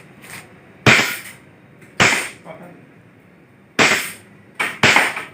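Gas blowback airsoft pistol firing five sharp shots at uneven intervals, the last two close together near the end.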